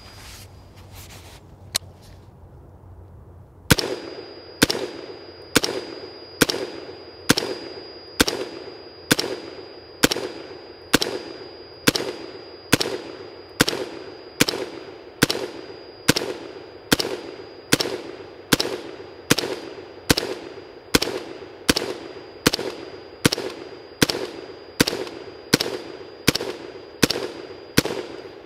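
A 5.56 mm Brownells BRN-Proto AR-15 replica rifle firing semi-automatic, a long string of shots at a steady pace of about one a second, each with a short echo after it. A few clicks come before the first shot, which is a few seconds in.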